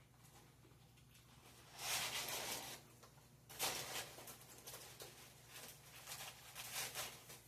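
Close-up eating sounds of a person biting into a Whopper hamburger and chewing it: a loud bite about two seconds in, then another bite and a run of smacking chews to near the end, over a faint steady hum.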